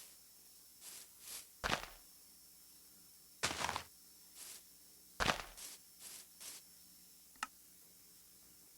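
A series of short knocks and rustles at irregular intervals, several with a dull thud, then a single sharp click near the end.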